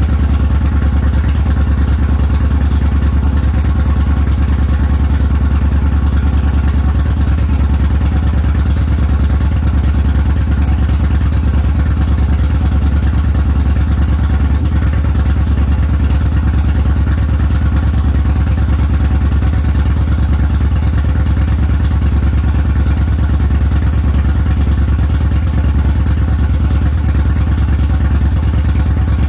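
A 2013 Victory Judge's 106-cubic-inch V-twin, fitted with a Graffeo Powerhouse exhaust and Lloyd'z 505 cams, idling steadily with a deep, even exhaust pulse.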